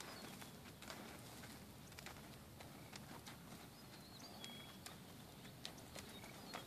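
Faint hoofbeats of a horse moving across a sand arena, soft irregular footfalls on the loose footing.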